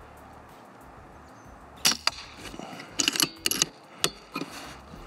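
Air rifle firing at a target: a sharp report about two seconds in, followed a fraction of a second later by a second crack, then a quick cluster of clicks and two more sharp cracks near the end.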